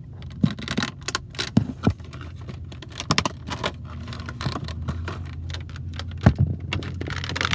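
Irregular clicks and rustles of toy packaging being handled as a small figure is taken out, over the steady low hum of a car cabin.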